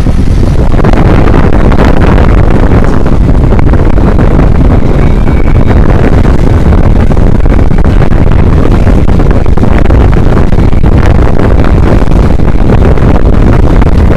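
Boat running at speed on open water, its engine drone mixed with wind buffeting the microphone in a loud, steady rush.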